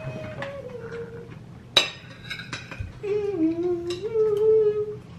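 Spoons and forks clinking and scraping on ceramic dinner plates, with one sharp clink about two seconds in. Someone hums a slow tune throughout, louder in the second half.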